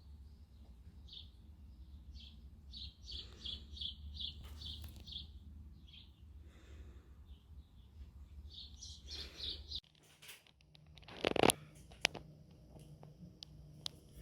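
Small birds chirping in quick series of short high notes over a low steady hum. About ten seconds in the hum stops, and a loud knock or scrape follows, then a few lighter clicks.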